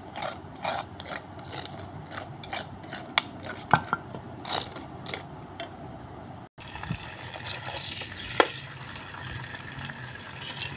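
A spoon scraping and clicking against a stone mortar as leftover ground chili paste is rinsed out with water. About two-thirds of the way through it cuts to garlic and chili frying in oil in an electric multi-function pan, a steady sizzle.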